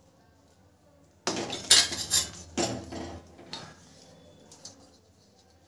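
Steel utensils clattering: a metal spatula scraping and knocking against a steel kadhai and steel plate while sticky almond, sesame and jaggery mixture is scooped out. The clatter starts about a second in and runs for about two seconds, then a few lighter clinks follow.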